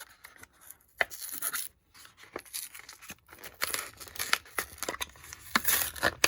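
Foil booster pack wrapper crinkling and tearing open, with the cards being handled: a string of sharp crackles and rustles that grows busier and louder in the second half.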